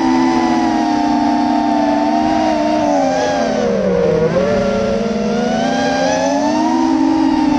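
FPV quadcopter's motors and propellers whining, several close tones moving together in pitch with the throttle: the pitch sinks about four seconds in, then climbs again.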